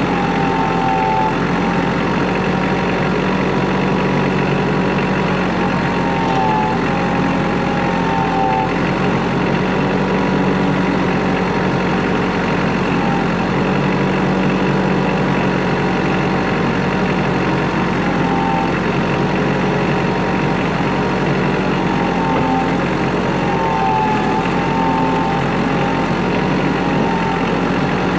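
Kubota L3940 tractor's diesel engine running steadily, with a faint higher whine that wavers in pitch now and then.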